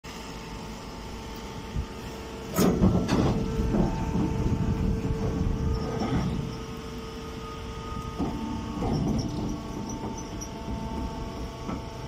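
Hydraulic hay press baler running with a steady machine hum. Louder stretches of rustling and knocking come from about two and a half seconds in and again near nine seconds, as the machine works chopped straw.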